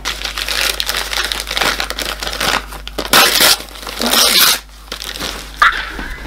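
Packaging being torn open and crumpled by hand: continuous crinkling and rustling, with two louder tearing bursts about three and four seconds in.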